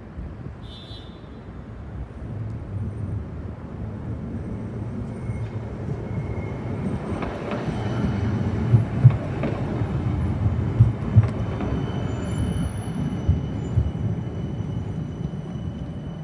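CAF Urbos 100 tram passing close by on grass-covered track, its low rumble building as it nears and peaking as it goes past. A few sharp knocks, some in pairs, sound from the wheels as it passes, over a faint steady high whine.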